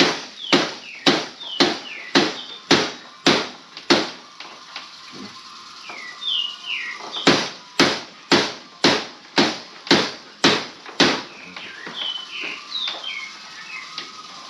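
Sharp, regular hammer strikes, about two a second, in two runs of about eight blows with a pause of a few seconds between them, then a few lighter taps near the end. Birds chirp in the background.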